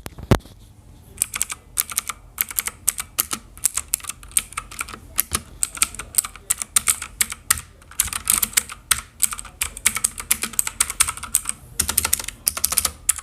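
Keys on a Cosmic Byte CB-GK-12 mechanical keyboard with clone blue switches being pressed close up in a quick, irregular run of sharp clicks, starting about a second in.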